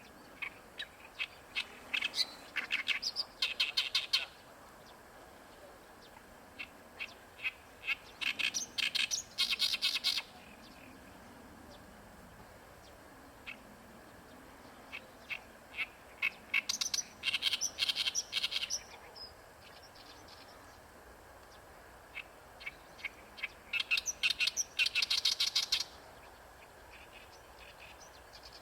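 Oriental reed warbler singing: four song bouts, each opening with a few scattered notes and speeding up into a rapid run of loud repeated notes, with pauses of a few seconds between bouts.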